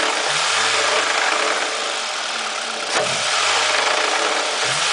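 Toyota 2AZ-FE inline-four engine running, its revs blipped up about three times. It is being checked for a knock that the owner places in the area of the starter.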